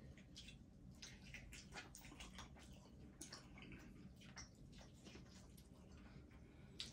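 Faint wet smacks and small irregular clicks of people eating and handling sauce-coated chicken boil food, with a slightly sharper click near the end.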